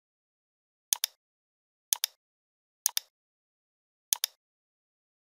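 Computer mouse button clicking four times, about once a second, each click a quick press-and-release pair of snaps, with dead silence between.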